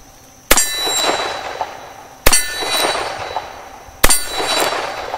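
Three shots from a Colt Diamondback .38 Special revolver fired single action, about two seconds apart, each followed by a ringing clang that fades over a second or so, typical of a bullet striking a steel target.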